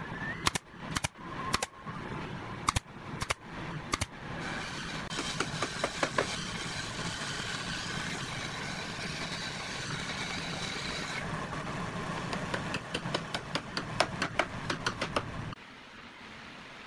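Pneumatic nail gun firing about seven nails into hardwood in the first four seconds, each a sharp snap. After that a steady machine noise runs, with a fast run of taps late on.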